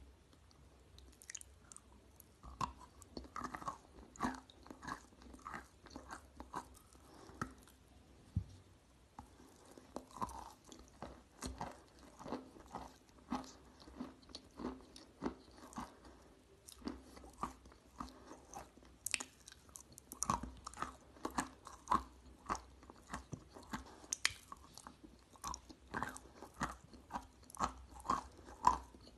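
Wet lump chalk being bitten and chewed: repeated short crunches, about one or two a second, with soft wet chewing between them.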